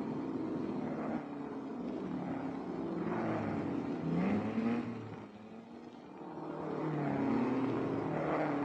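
Racing car engines accelerating, their pitch rising through the gears; the sound fades about five seconds in and swells again as another car comes through.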